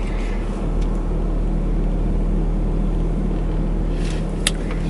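Car engine running with a steady low hum, heard from inside the cabin while the car moves slowly; a short click near the end.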